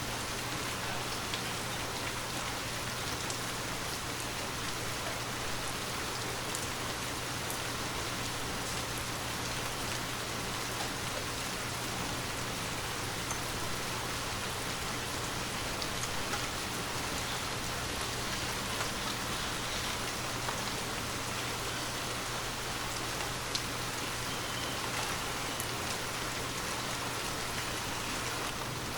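Steady, continuous rain falling on a surface, with scattered individual drop ticks over an even hiss.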